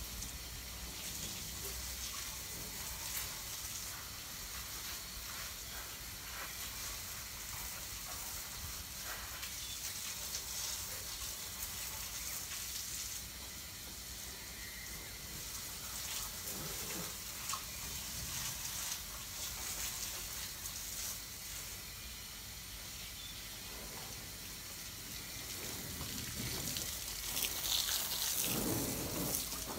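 Water from a garden hose spraying onto a car's body, a steady hiss that grows louder near the end as the spray comes close.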